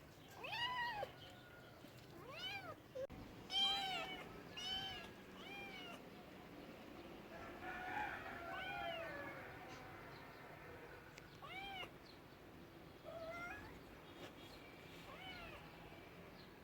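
Domestic cat meowing again and again: about ten short meows, each rising and falling in pitch, with a longer, wavering call about eight seconds in.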